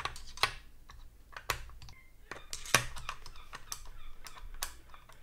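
Irregular clicks and light knocks of a T10 Torx screwdriver being taken from a plastic precision-screwdriver set and worked into the screw holes of a camera's metal body. The sharpest clicks come about one and a half and nearly three seconds in.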